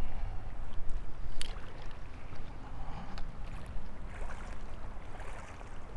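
Wind buffeting the microphone, a steady low rumble, with small waves lapping at the shoreline and a couple of faint clicks about a second and a half and three seconds in.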